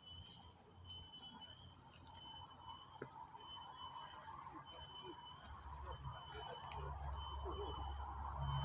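Steady, high-pitched chorus of insects, a continuous shrill drone without a break. A low rumble comes in over the last few seconds.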